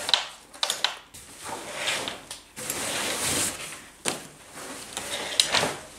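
Nylon fabric rustling and scraping, with a few sharp clicks and knocks, as a rolled bivy bag with a sleeping bag inside is pulled out of a rucksack's bottom compartment.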